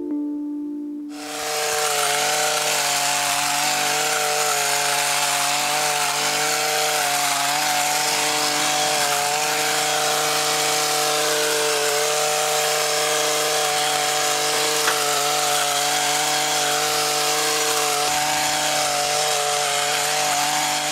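Small petrol engine of a handheld power tool running steadily at high speed, its pitch wavering slightly. It cuts in about a second in.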